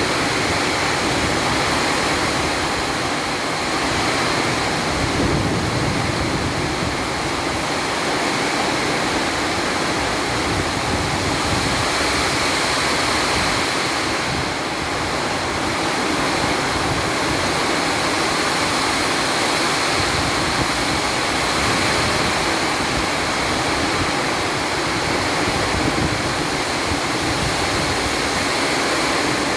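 Heavy storm rain pouring down in a steady, loud rush.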